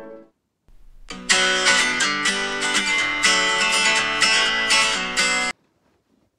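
Quickly strummed guitar chords, beginning about a second in and cut off abruptly after about four seconds.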